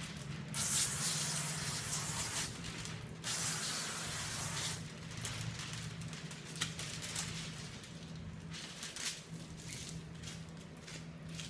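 Water hissing from the hand nozzle of a hose-fed pressurized tint spray tank (a Tint Hozilla). It sprays two long bursts, about half a second in and about three seconds in, then shorter spritzes.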